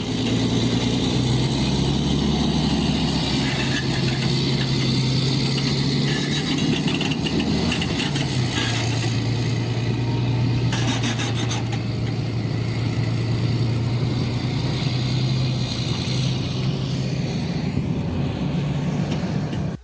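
Heavy diesel engine of large mining machinery running steadily. Its pitch dips slightly about eight seconds in, and there is a brief rattle of clicks near the middle.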